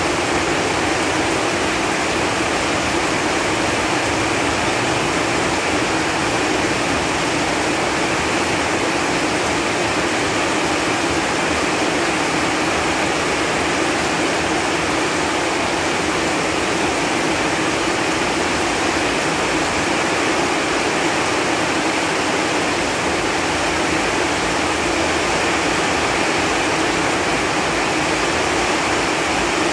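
Steady rain falling on leaves and foliage: a dense, even hiss of drops with no let-up.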